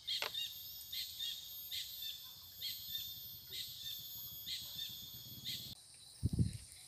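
A bird repeating a short high chirp about once a second over a faint steady insect drone. Near the end comes one low thump as a wooden pestle is pressed onto shallots and garlic on a plate.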